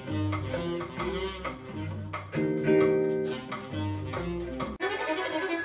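Recorded music played through AER full-range drivers on open baffles, driven by a 300B tube amplifier: a plucked guitar piece with deep bass notes. About five seconds in it cuts off abruptly and a violin piece begins.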